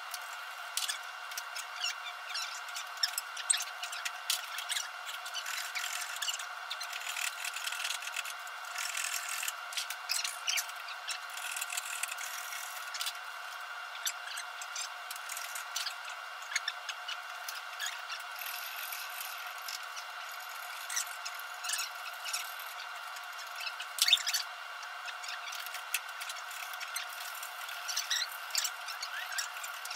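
Drawknife shaving wood held in a bench vise: irregular scraping strokes and small clicks, with a louder knock about 24 seconds in, over a steady background hum.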